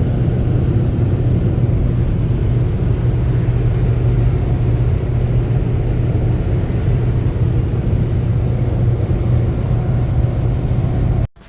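Steady low rumble of a car on the move, road and engine noise without change, cutting off suddenly near the end.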